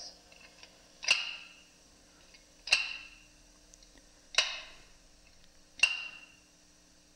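Hamburger press clapped shut four times, about a second and a half apart, each a sharp clack with a short ringing tail.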